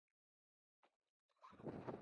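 Near silence for about a second and a half, then gusty wind noise on the microphone comes back in.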